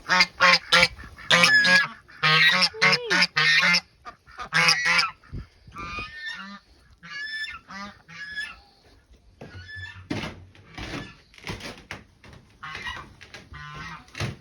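Geese honking: many short calls in quick succession, loudest in the first few seconds, then fainter and more scattered.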